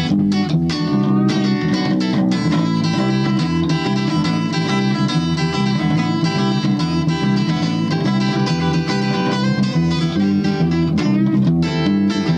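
Acoustic guitar played live with a deep bass line underneath, an instrumental passage of plucked and strummed notes.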